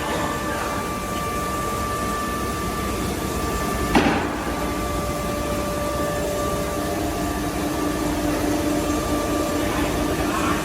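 CNC nesting router running, a steady noisy hum with a high steady whine over it, and a single sharp knock about four seconds in.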